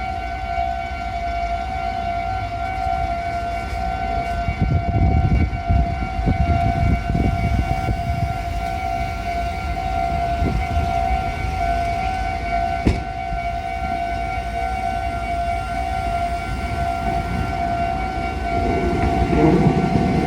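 Japanese railway level crossing's electronic warning bell ringing in a steady, rapidly repeating two-tone ding. A low rumble swells for a few seconds about five seconds in, and a train's rumble builds near the end.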